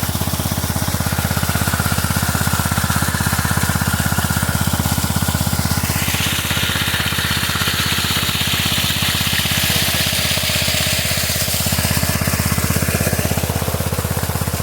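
Engine of an irrigation pump set running steadily with a fast, even firing beat while pumping water into a rice field. A higher hiss comes in over it for about four seconds, around six seconds in.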